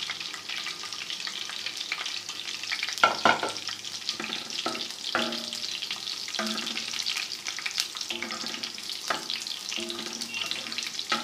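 Chopped garlic sizzling steadily in hot ghee with pieces of goat fat on a tawa, stirred with short scraping strokes every second or so; the loudest scrape comes about three seconds in.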